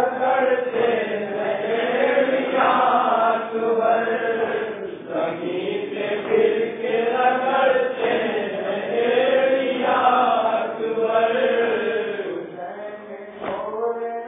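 A group of men chanting a nauha, a Shia Muharram lament, together in a swaying sung melody, with a dull beat roughly once a second beneath it.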